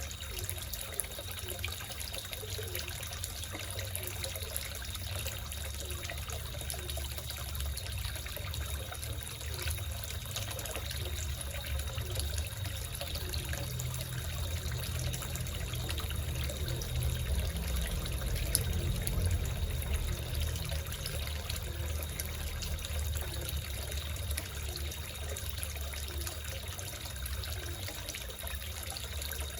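Water trickling steadily into a small koi pond, with frogs croaking over it.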